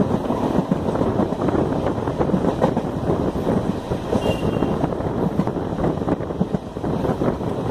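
Passenger train coach running at speed, heard from its open doorway: a steady rumble and irregular clatter of wheels on the rails, with wind buffeting the microphone.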